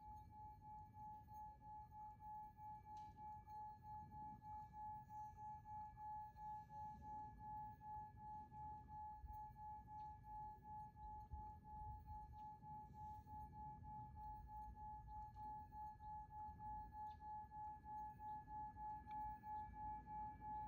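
A faint, sustained ringing meditation tone with a fainter overtone above it, pulsing evenly about twice a second, over a low rumble.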